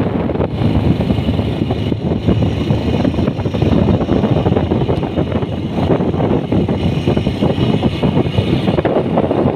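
Motorcycle riding along at road speed, its engine running steadily under loud wind noise on the microphone.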